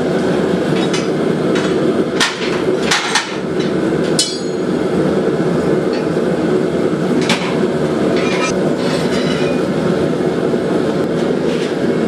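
Steady roar of a gas forge burner, with a few sharp metallic clinks and taps of steel on steel over it.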